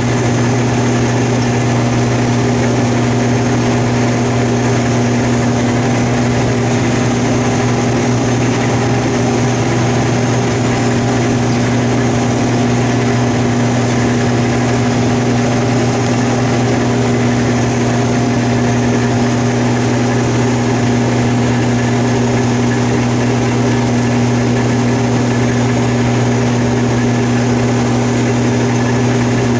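Combine harvester running steadily, a constant loud engine and machinery drone with no change in pitch or level.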